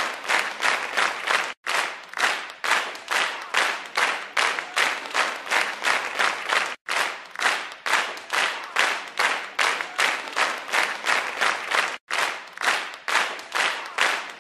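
Rhythmic clapping at a steady beat of about three claps a second. The sound cuts out for an instant three times, about five seconds apart.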